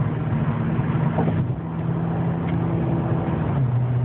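2007 Acura TL Type S's 3.5-litre V6 with an aftermarket ATLP exhaust and J-pipe, droning steadily as the car cruises, heard from inside the cabin with the active noise cancellation disconnected. The pitch shifts slightly near the end.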